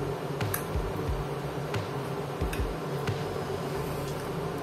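A few faint clicks and scrapes of a thin metal blade prying at the small plastic switch housing of a handheld bag heat sealer, over a steady low hum.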